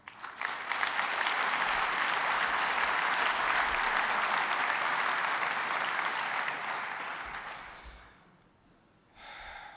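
A large hall audience applauding, starting just after the start and dying away about eight seconds in. A brief voiced sound follows near the end.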